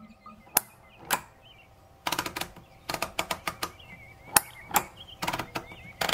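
Dymo handheld label embosser being worked by hand: the letter wheel clicking round as it is turned and the grip squeezed to punch letters into the tape. Two sharp clacks, then a quick, irregular run of clicks from about two seconds in.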